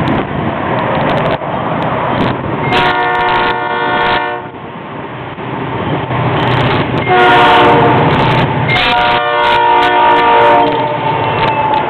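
Air horn of a Florida East Coast diesel freight locomotive sounding three long blasts, the grade-crossing warning, as the train approaches. The last two blasts come almost back to back and are the loudest. The locomotives' engines rumble underneath.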